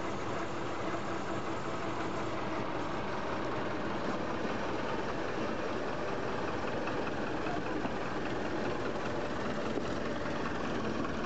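Small narrow-gauge diesel locomotive engine running steadily at idle.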